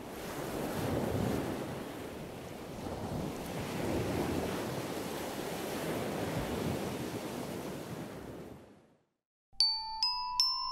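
A rushing, surf-like noise swells and fades away about nine seconds in. After a brief silence, bright bell-like struck notes start up, a melody climbing in pitch at about three notes a second.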